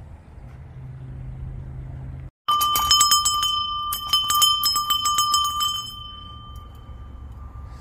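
A small rusty cast-iron bell on a rooster wall bracket, rung rapidly by hand: many quick clangs over about three seconds, then one clear ring fading out over about two seconds. A low steady hum runs under the first two seconds.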